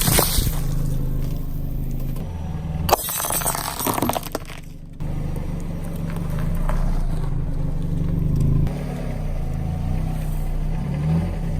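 A car's engine running at low speed as its tyre rolls over objects and crushes them. A burst of crackling and crunching comes about three to four and a half seconds in.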